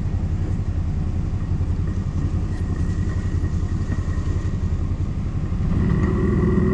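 CFMoto X8 ATV's V-twin engine running at low speed with an even pulsing note and a thin steady whine above it, getting louder near the end.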